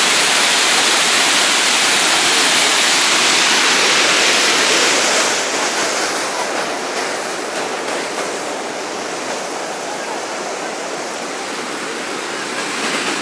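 Floodwater rushing down a swollen river in spate: a steady, dense rush of water. It turns somewhat quieter and duller about five seconds in.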